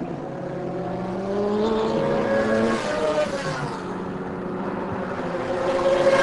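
A pack of superbike racing motorcycles at full throttle on a straight, several engines at once with their pitch rising as they accelerate. Near the end one passes close, loudest, its pitch dropping sharply.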